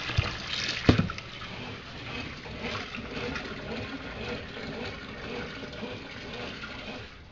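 Water gushing steadily from a hose into a laundry tub of soapy clothes as it fills. Two sharp knocks come in the first second, the second one louder.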